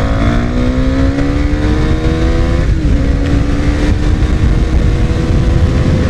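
KTM 390 Duke's single-cylinder engine pulling hard under full throttle, its note rising steadily as the bike gains speed. About three seconds in the pitch wavers briefly, then keeps climbing more slowly.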